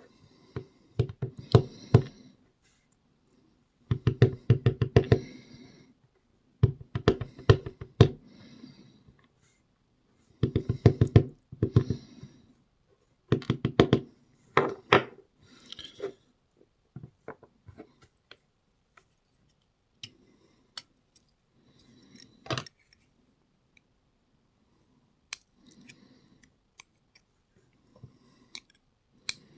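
Bursts of quick metallic clicks and rattles from a small pin tumbler padlock being taken apart, with its core worked out and its pins and drivers handled. Single clicks and taps follow.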